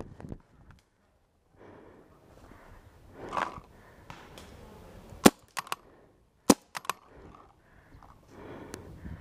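A pump-action paintball marker, a CCM T2, fires two sharp shots about a second apart. Each shot is followed by a pair of quieter clicks, typical of the pump being cycled. A short rustle comes a couple of seconds before the first shot.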